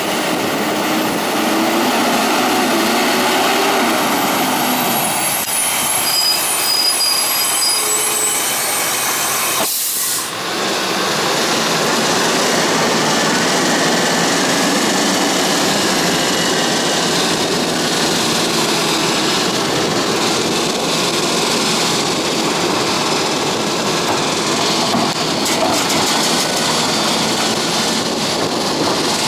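Sterling Acterra refuse truck with a Pak Mor rear-loader body running loud and steady, first while it pulls up and then while its cart tipper empties a recycling cart into the hopper. A brief dip and sharp break come about ten seconds in.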